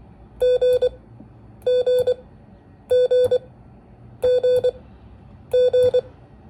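Morse code tone sending the letter G (dah-dah-dit) five times in a row, one steady pitched beep keyed into two long tones and a short one, about once every second and a quarter.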